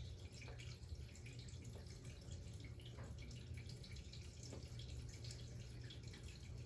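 Faint short strokes of a dry-erase marker on a whiteboard, a few scattered through the seconds, over a low steady room hum.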